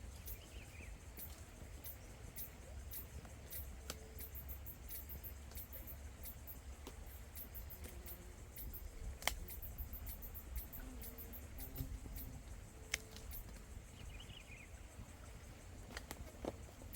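Wood fire crackling with many small sharp pops and a few louder snaps, over a low rumble, with faint bird chirps.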